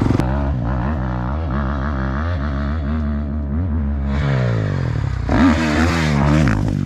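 Dirt bike engines running near idle with small blips of the throttle, their pitch wavering up and down. About four seconds in, a harsher hiss joins the engines.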